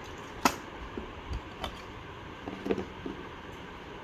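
A few light clicks and taps from plastic miniatures being handled, set down and picked up. The sharpest click comes about half a second in, with a short cluster of smaller taps near the middle, over a steady low background hum.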